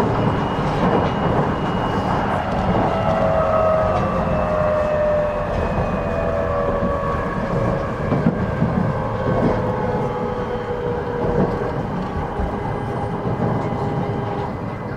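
JR 209 series electric train heard from inside the car: the traction motors and inverter give a whine in several tones that falls slowly in pitch over steady running rumble as the train brakes for its next station, with a few faint rail-joint clicks.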